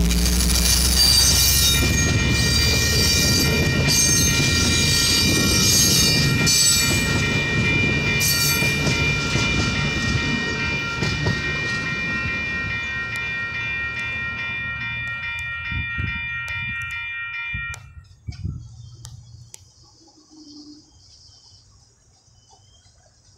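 Amtrak Capitol Corridor bilevel passenger cars rolling past a grade crossing, with high-pitched wheel noise in the first half, and a steady ringing of the crossing's warning bell over it. The rolling noise fades as the last car goes by, and the bell cuts off suddenly about eighteen seconds in, leaving quiet with a few knocks.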